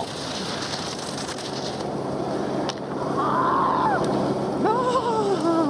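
Steady wind-and-snow hiss of a downhill ski racer at speed. From about three seconds in it is joined by long, drawn-out shouts that rise and fall in pitch.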